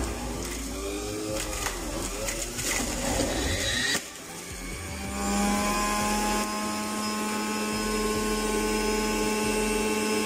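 Electric centrifugal juicer grinding carrots, its motor note wavering under the load as they are pressed down the chute. About four seconds in the grinding stops suddenly, and the motor's whine rises and settles into a steady unloaded hum.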